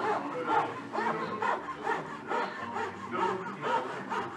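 Fine fret-saw blade of a French marquetry chevalet sawing through a clamped veneer packet, in quick, even back-and-forth strokes of about two a second, cutting out a piece-by-piece background.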